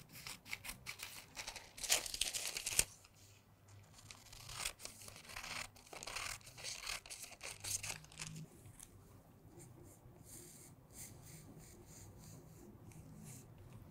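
Scissors cutting through folded tracing paper: a run of quick crisp snips with paper rustling, loudest in the first three seconds, then sparser snips and rustling that fade down in the second half.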